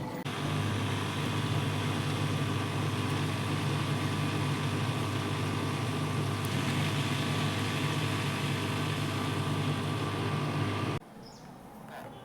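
Steady hum of an electric motor, as of a washing machine's pump, running for about eleven seconds and then cutting off abruptly.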